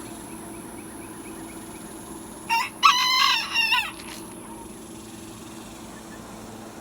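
Rooster crowing once, about two and a half seconds in: a short first note, then a drawn-out cock-a-doodle-doo lasting about a second.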